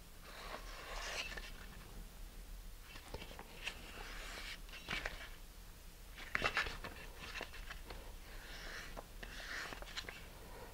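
Small balsa wood pieces rubbed by hand on a strip of sandpaper: faint scratchy rasping in several short spells of strokes, with a few light clicks.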